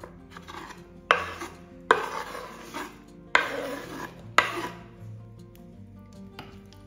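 Chopped shallots scraped off a wooden cutting board into a bowl with a knife: four sharp scrapes in the first four and a half seconds, over soft background music.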